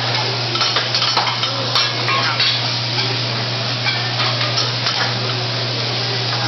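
Food sizzling on a steel teppanyaki griddle, with irregular clicks and scrapes of metal spatulas against the flat-top as the food is worked.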